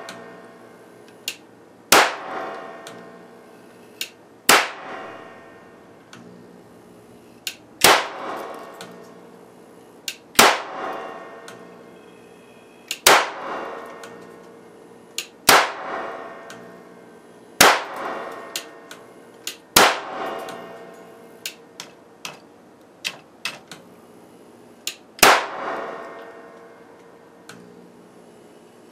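A 6400 V capacitor bank discharging repeatedly into an old CRT monitor circuit board: sharp arc cracks about every two to three seconds, each with a ringing tail, as components and traces blow apart. A run of smaller snaps comes between the later loud ones.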